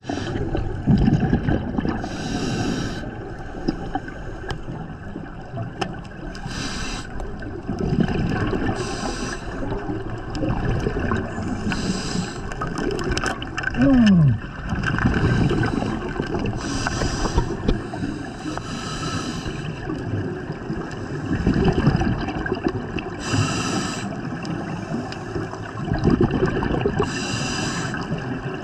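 Scuba regulator breathing underwater: a hiss on each inhalation every few seconds, with the low bubbling rumble of exhaled bubbles between. About halfway through, a short loud tone falls in pitch.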